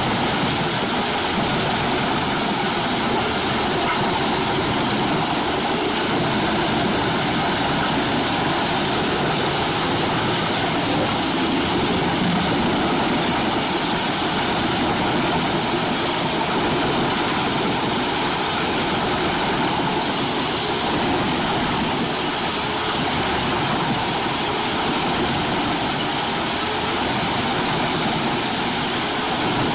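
Eschlböck Biber 92 drum wood chipper running steadily, a constant dense machine noise from its engine and chipping drum with no breaks or changes.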